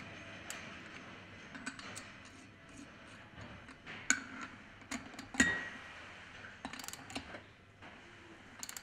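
Ratchet wrench and socket tightening the impeller nut of a centrifugal pump: scattered light metallic clicks and clinks, with short runs of rapid ratchet ticking near the end.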